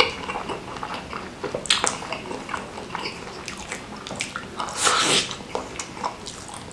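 Close-miked eating: biting into and chewing a large beef meatball (bakso) coated in spicy chili sauce, with wet lip smacks and slurps. The loudest slurps come about two seconds in and again about five seconds in.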